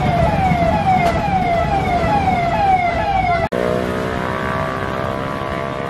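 Street noise with an electronic siren-like falling tone repeated over and over, a little more than twice a second, which cuts off abruptly about three and a half seconds in. A steady drone of several held tones follows.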